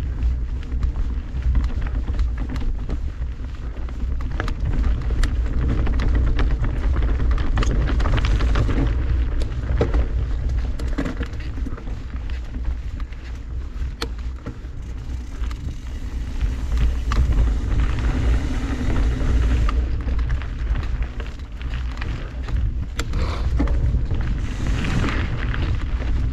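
Mountain bike ridden along a rocky dirt trail: wind rumbles on the microphone throughout, with tyres crunching over gravel and frequent rattles and knocks from the bike. Stretches of louder gritty hiss come about eight seconds in, mid-way, and near the end.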